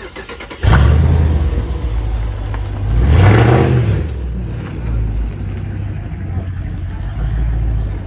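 Dodge Charger V8 engine starting suddenly about a second in, revving up and back down about three seconds in, then running steadily.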